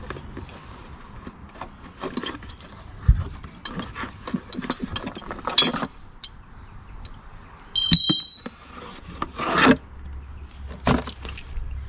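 Cardboard box rustling and scraping as a hydraulic bottle jack and its steel handle rods are pulled out, with scattered knocks, a thud about three seconds in and a ringing metal clink about eight seconds in.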